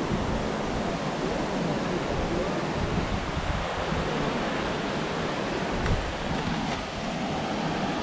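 Steady rushing noise of wind buffeting the action camera's microphone, with uneven low rumbling.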